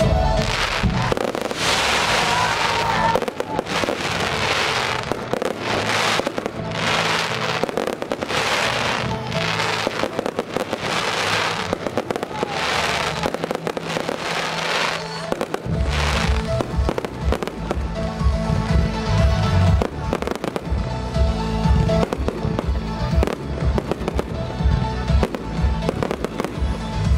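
Fireworks over music: for the first half, a string of rushing hisses about a second apart from ground fountains. About halfway through, the hisses give way to a dense run of shell bursts, with booming bangs and crackling.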